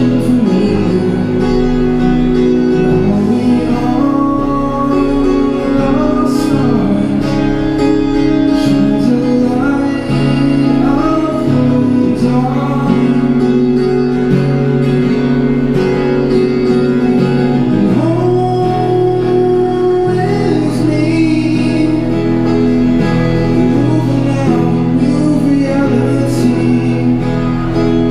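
Yamaha acoustic guitar strummed through a Roland Cube Street EX busking amplifier, with a sung vocal line over it in a live-looped song.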